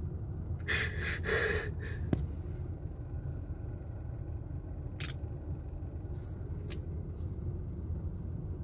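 Steady low rumble inside a car's cabin, with a woman's sniffling breath from crying about a second in and a couple of faint clicks later.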